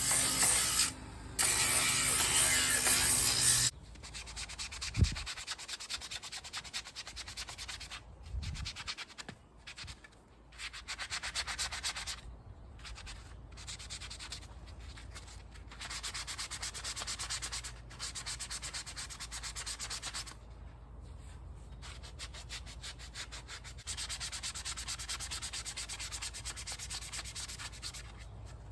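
Sanding a 3D-printed plastic helmet: a rasping rub in long stretches broken by short pauses. A louder, steady hiss fills the first few seconds.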